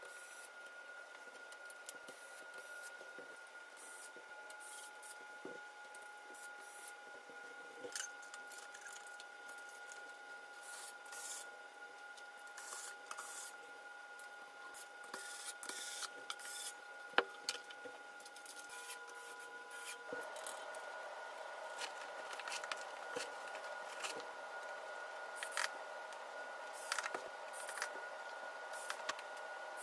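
Furniture assembly handling noises: scattered light clicks, taps and scrapes of frame pieces and panels being fitted, with one sharper click about 17 seconds in, over a faint steady hum.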